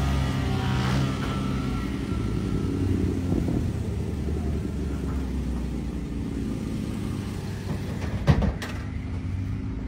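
Motorcycle engine revving loudly during a wheelie, then easing after about a second into weaker, steadier engine sound from bikes further off. There is a single sharp knock about eight seconds in.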